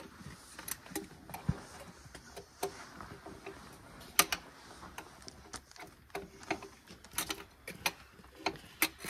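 Hand wrench tightening the one-inch hub bolts on a Farmall Super M-TA's rear wheel: irregular metallic clicks and clinks, a few sharper ones about four seconds in and near the end.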